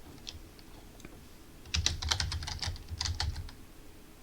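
Typing on a computer keyboard: a few faint keystrokes, then a quick run of key presses starting a little under two seconds in, entering the admin password.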